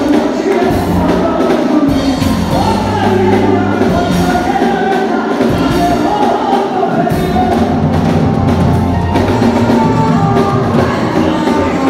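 Live band music, keyboard and drums, with a woman singing lead into a microphone through the PA.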